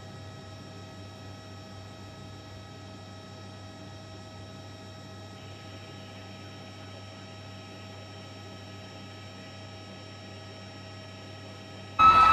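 Steady hum made of several held tones over faint hiss. At the very end a loud crowd's cheering and screaming cuts in suddenly.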